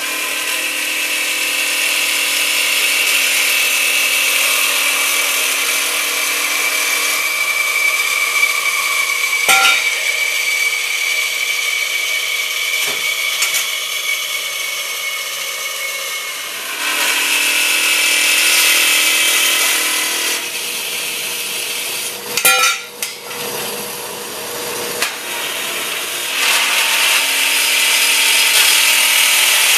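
An Ellis 1600 metal-cutting bandsaw and an older small bandsaw cutting steel stock: the blade screeches steadily over the motor hum, and the sound changes as one cut ends and the next begins. There are sharp metal clanks about ten seconds in and again a little past twenty seconds.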